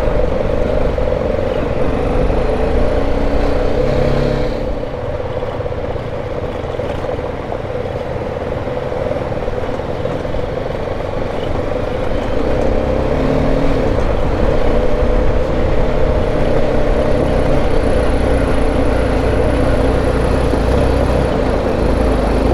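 BMW G310 GS single-cylinder motorcycle running steadily while ridden over a rough gravel track, its engine mixed with steady road and wind noise.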